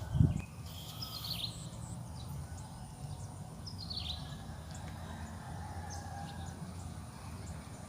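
Outdoor ambience: a steady low hum with a few bird calls, two of them falling in pitch, about a second in and about four seconds in.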